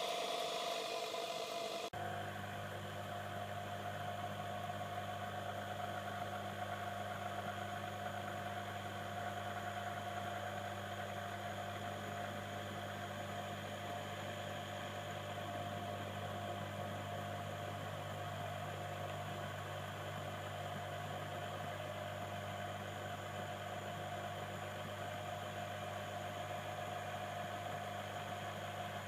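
Small electric motor of a watchmaker's lathe running with a steady hum. The sound changes abruptly about two seconds in, when the low hum sets in under a steady whir.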